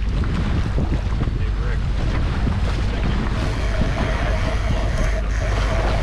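Wind buffeting the microphone over the steady drone of a running boat engine and water rushing past the hull. A thin steady hum comes in about three seconds in.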